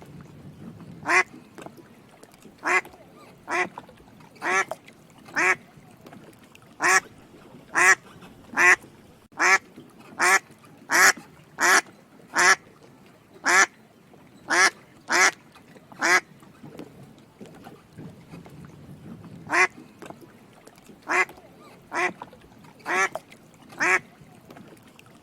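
Duck quacking over and over: short, sharp quacks at uneven intervals, often in quick runs of two or three, with a pause of about three seconds about two-thirds of the way through.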